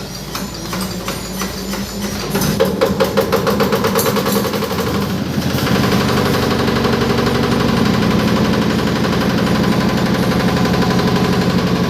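Yanmar 10 hp single-cylinder diesel engine running a waste-sorting machine, with a rapid, even knocking beat. It grows louder over the first few seconds and turns into a steadier, denser drone about halfway through.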